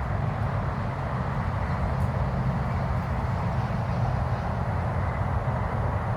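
Steady rush of interstate highway traffic, an unbroken low rumble under an even hiss.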